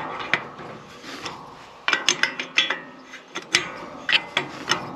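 Spanners working on the steel chain tensioner of an irrigation machine to remove its worn-out bearing: irregular sharp metallic clicks and clinks, some in quick runs, with scraping between them.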